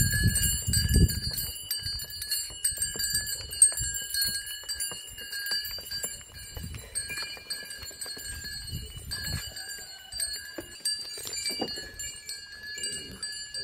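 Bells on a bull being led along, ringing and jingling steadily, with scattered light knocks and a low rumble near the start.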